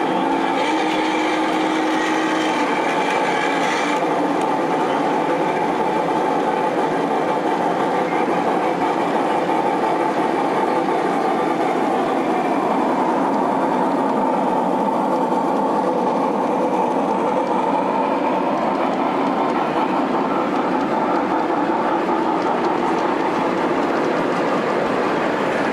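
G scale model trains running on the track: a steady running noise of wheels and motors. A thin steady whine is heard during the first few seconds and stops about four seconds in.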